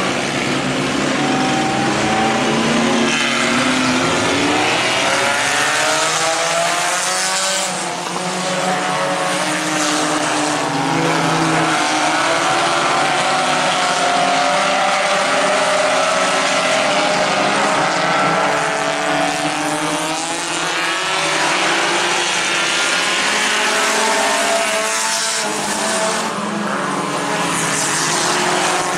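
A pack of compact-class dirt-track race cars running laps together, several engine notes overlapping and rising and falling as the cars accelerate and lift through the turns.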